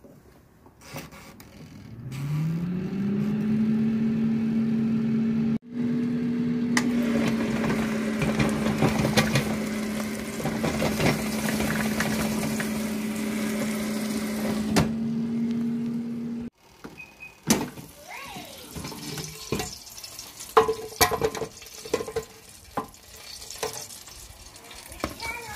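Philips air fryer's fan motor spinning up with a rising hum about two seconds in, then running steadily until it cuts off suddenly about sixteen seconds in. Afterwards come scattered clinks and knocks.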